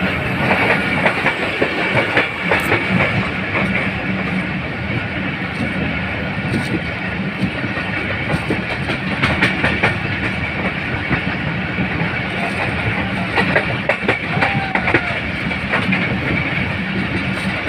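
Hazara Express passenger train running at speed, heard from aboard: a steady rumble of wheels on the track with irregular clickety-clack as the wheels cross rail joints.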